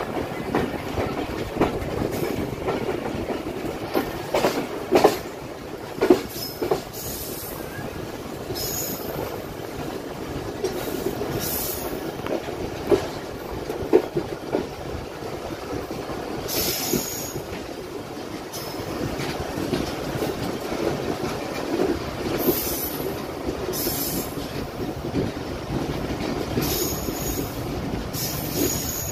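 Passenger train coaches running slowly on the track: a steady rumble of wheels on rail, irregular clacks as the wheels cross rail joints, and brief high wheel squeals several times in the second half.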